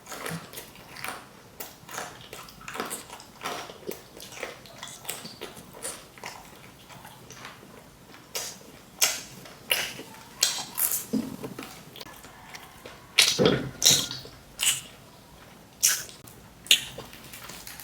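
Close-up crunching and chewing of crispy fried chicken: a run of short, crisp crunches, with louder bites between about nine and seventeen seconds in.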